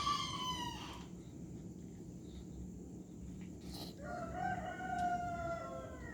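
Two long, drawn-out animal calls, each falling in pitch: one in the first second and a lower one from about four seconds in to near the end.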